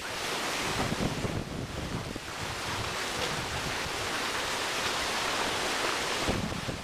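Wind blowing over the microphone: a steady rushing noise with an uneven low rumble.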